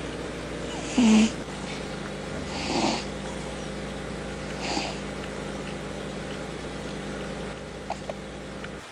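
A cat making a few short calls, the loudest about a second in, over a steady low hum.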